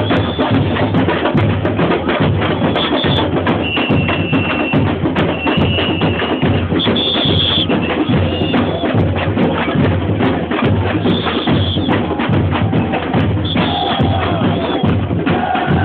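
Samba bateria (carnival percussion corps) playing a driving samba rhythm, loud and close, with drums and bright hand percussion. Short high held tones ring out over it several times.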